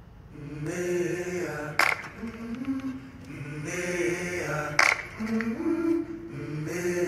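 A song played through a Soundcore Motion 100 Bluetooth speaker: held, wordless choir-like vocal notes stepping between pitches, with a sharp percussive hit about every three seconds. It swells in about half a second in after a quiet moment.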